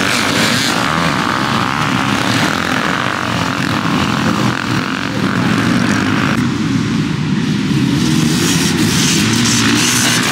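Several dirt bike engines revving as a pack of riders passes close on a dirt track. The sound eases to a more distant drone about six seconds in, then builds again near the end as more bikes come by.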